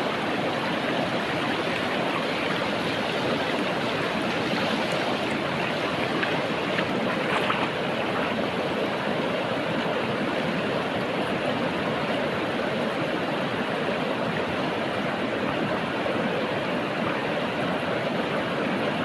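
Steady rush of a flowing stream, an even wash of water noise.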